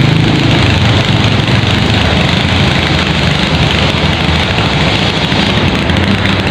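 A steady engine drone with a low hum, under a loud, even rushing noise; the hum eases slightly just after the start.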